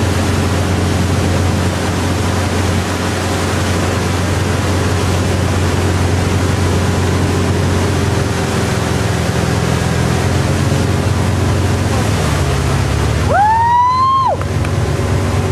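Tow boat's engine running steadily under a constant wash of water and wind noise. About thirteen seconds in, a high tone rises quickly, holds for about a second and drops away.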